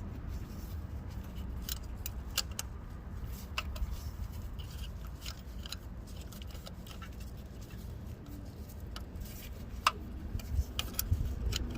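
Irregular small metallic clicks and taps of a wrench on the 10 mm bolt of an A/C suction hose as it is worked loose, one louder click about ten seconds in, over a low steady rumble.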